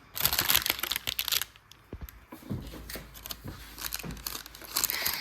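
Crinkling of wrapping being undone from a freshly baked sponge cake, busiest in the first second and a half, then quieter with a few soft knocks.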